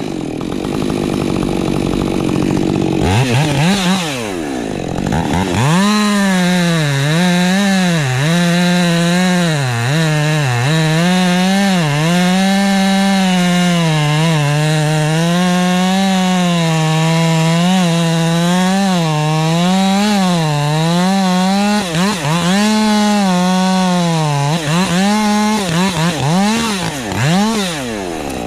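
Ported Husqvarna 550 XP Mk II two-stroke chainsaw on a 20-inch bar: revved up and down in the first few seconds, then held at full throttle from about six seconds in, its pitch wavering as the chain cuts into wood.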